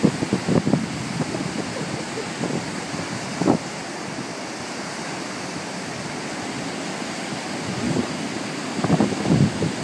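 Ocean surf breaking and washing up a sandy beach: a steady rush of water. Wind buffets the microphone in gusts at the start, about a third of the way in, and again near the end.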